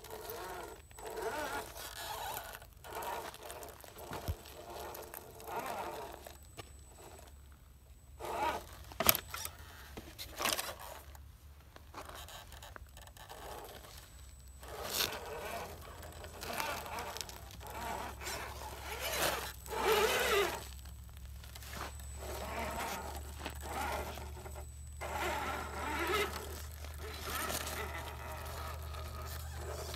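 Radio-controlled scale crawler truck working its way over loose dirt and rock: short, irregular bursts of motor and drivetrain noise with the tyres scraping and crunching, and one sharp click about nine seconds in.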